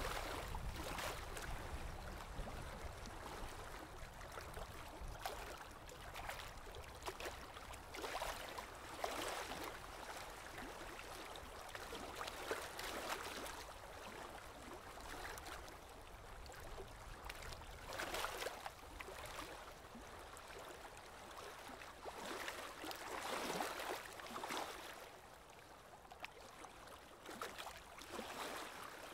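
A paper blending stump rubbing graphite into drawing paper: soft scratchy swishes that swell and fade in uneven strokes.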